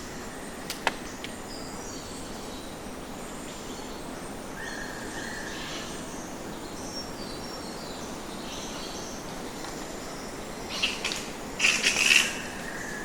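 Flying fox colony in trees: a steady background hiss with faint, scattered high calls, then two loud clusters of harsh calls near the end. A single sharp click about a second in.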